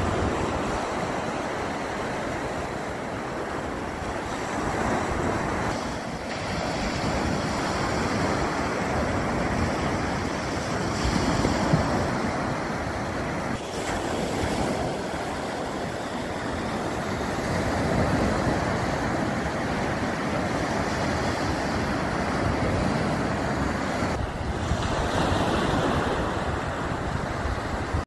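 Sea waves breaking and washing up a sandy shore: a steady rushing surf that swells and eases every few seconds as each wave comes in.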